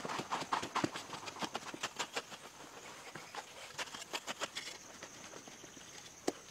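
A hand-held digging tool striking and scraping loose, dry earth in quick repeated chops, several a second at first, then thinning out about two-thirds through. A faint, steady high tone comes in at the same point.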